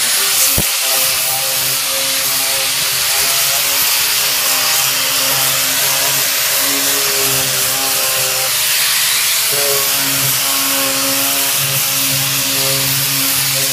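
Loud music that starts suddenly, over the steady running of an electric power tool used to sand back paint.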